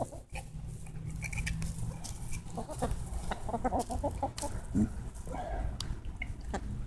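Chickens clucking excitedly, a run of short clucks with sharp clicks among them, as the flock crowds in to be fed canned sweet corn.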